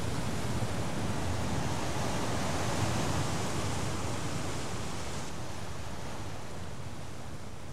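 Sea surf and wind ambience: a steady, even rushing that slowly fades out over the second half.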